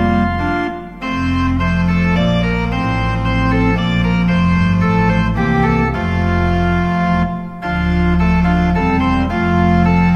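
Organ music: held chords that change in phrases, with short breaks about a second in and again after about seven and a half seconds.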